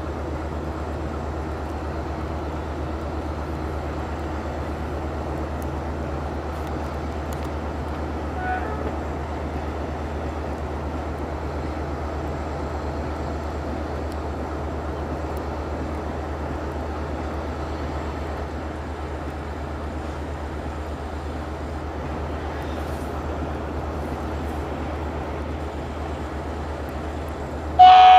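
Steady low rumble of a train approaching on the line, with outdoor background noise. Near the end a loud train horn sounds abruptly.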